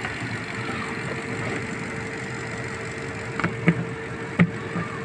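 Toyota 2UZ-FE 4.7-litre V8 idling steadily and quietly, with no bearing or pump noise, after its water pump, timing belt and timing belt bearing were replaced. A few short, sharp clicks come over it in the second half.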